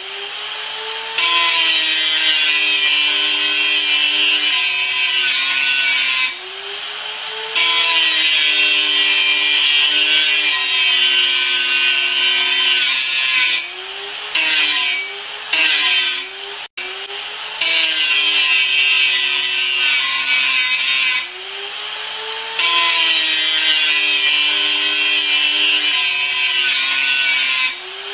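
Angle grinder grinding with a high motor whine and harsh gritty hiss. It is lifted off the work several times, briefly and at irregular intervals. Each time the grinding noise drops away and the motor pitch rises as it spins freely, then sags again when it bites back in.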